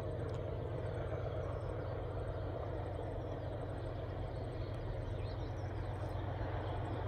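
Diesel locomotive engine running with a steady low drone. Faint bird chirps come and go over it.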